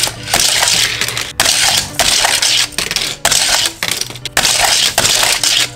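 Hard plastic clattering and rattling from a Thomas Minis Boost n Blast toy launcher as small plastic mini trains are pushed through it and rattle along its plastic track. The clatter comes as a run of loud rattles with short breaks between them.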